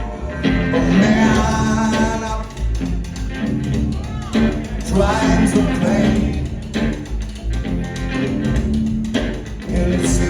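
A rock band playing live: a bass line and drums, with guitar and other pitched parts above.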